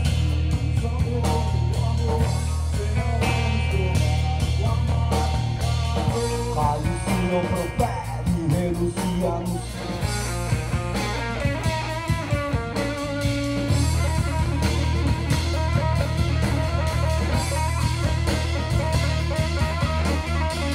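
A rock band playing live: electric guitar, electric bass and drum kit. The low bass line drops back for several seconds midway, then comes back in.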